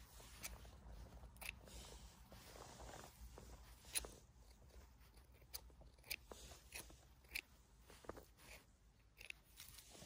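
Scissors snipping through mushroom stems: a string of short snips, roughly one every second, with one louder snip about four seconds in.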